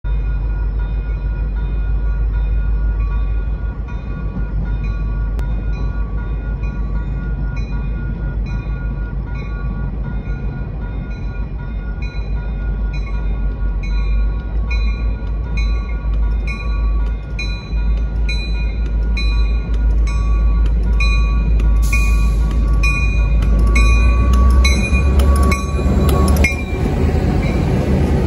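Railroad grade-crossing warning bell ringing steadily, a bit more than one ding a second, over a low rumble. Near the end an MBTA commuter rail train reaches the crossing and the noise of its passing coaches swells over the bell.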